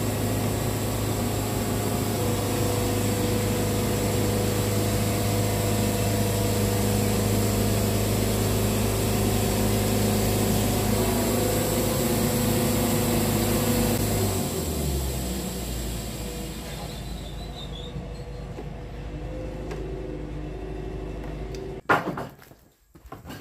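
Wood-Mizer portable bandsaw mill's engine running and its blade sawing through a rotten deadwood log, a loud steady mechanical drone. About 14 seconds in the engine note drops and the cutting noise fades as the cut finishes, leaving a quieter steady running hum. Near the end the hum stops abruptly and a few sharp knocks follow.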